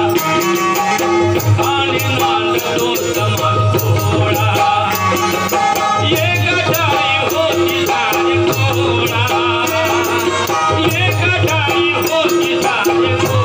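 Harmonium playing a melody with held chords over a steady percussion beat and a shaking, jingling rattle: an instrumental passage of live folk devotional music.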